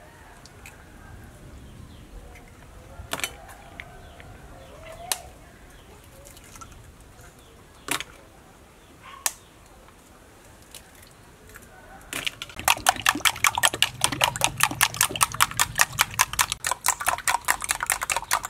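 Duck eggs being cracked open, a few separate sharp taps against a bowl, then, about twelve seconds in, beaten hard in a bowl: a rapid, even clicking of the utensil against the bowl, several strokes a second.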